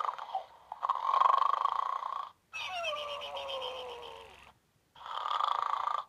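Electronic snoring plush pig toy playing its recorded snore. A snore is followed by a long whistle that falls slowly in pitch, and a second snore begins about five seconds in.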